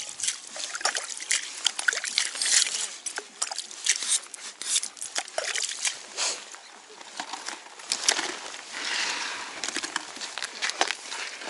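Slush and ice chips being scooped out of a freshly drilled ice-fishing hole with a metal skimmer ladle: water slopping and trickling, with many quick clicks and scrapes of ice.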